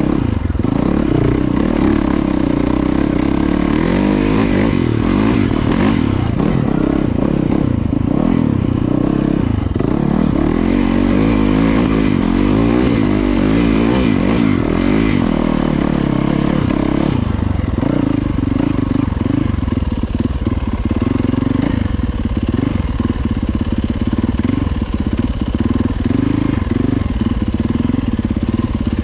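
Yamaha YZ450FX four-stroke single-cylinder dirt bike engine running at low revs on a trail ride. About two-thirds of the way through, the engine note turns choppy as the throttle is worked on and off.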